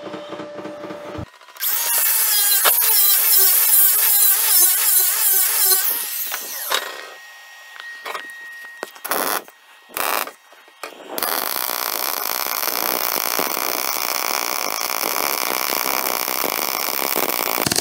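MIG welding arc from an R-Tech 180 A inverter MIG welder on steel: two short strikes about a second apart around nine seconds in, then a steady hissing arc from about eleven seconds on as a bead is run. Before that, for about four seconds, a loud warbling whir of unclear source.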